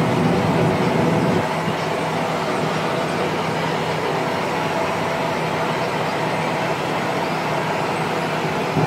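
Massey Ferguson 7626 tractor's engine running steadily under load, heard from inside the cab while it pulls a Horsch Joker disc harrow across the field. The drone eases a little about a second and a half in and picks up again near the end.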